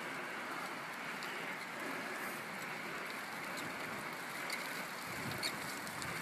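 Steady wind hiss on the microphone outdoors. A few faint clicks come near the end as the nearest bicycle rolls close on the gravel.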